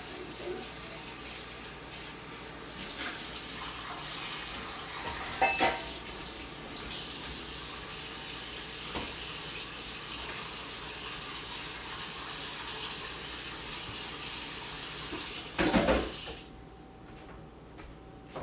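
Kitchen faucet running steadily into a stainless-steel sink, with a couple of brief clatters of dishes, then shut off sharply about sixteen seconds in.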